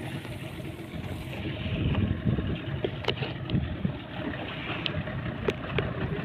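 Small motorised fishing boat under way at sea: a steady engine-and-water rumble with wind buffeting the microphone, and a few sharp knocks.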